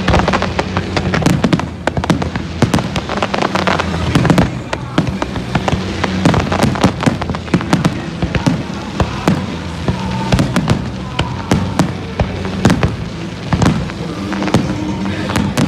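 Aerial fireworks display: a dense barrage of shell bursts and crackling stars, with sharp bangs coming several times a second.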